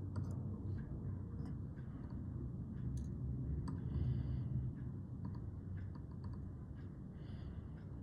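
Small, irregular clicks and brief scrapes of metal tweezer tips against a circuit board while a tiny surface-mount diode is nudged into place, over a steady low rumble.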